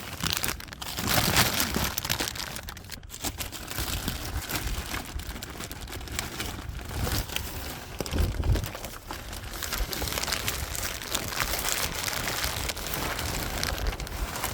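Plastic grocery bags rustling and crinkling as they are handled, with gusts of wind buffeting the microphone.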